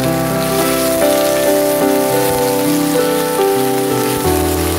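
Leafy greens sizzling in a hot wok as they are stir-fried with a wooden spatula, a steady hiss like rain. Background music with sustained piano-like notes plays over it.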